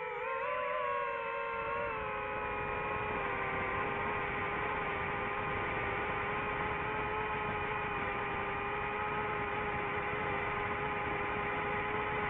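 Quadcopter motors and propellers whining steadily, with a rushing noise underneath. The pitch wavers, dips slightly about two seconds in, then holds steady.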